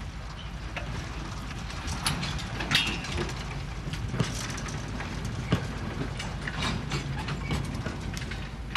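Freight wagons and their couplings clanking and creaking in a shunting yard: irregular metal knocks and clicks over a low rumble, with a brief squeal about three seconds in.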